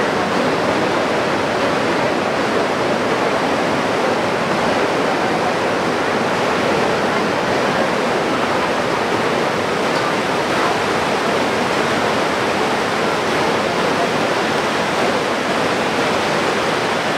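Shallow river rushing over rocks in rapids: a steady, even roar of white water.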